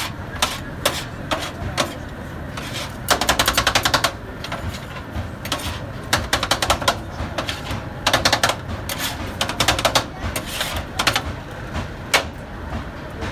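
Metal spatula chopping and striking doner meat on a steel griddle tray: rapid runs of sharp metal clacks, about a dozen a second, with single knocks between.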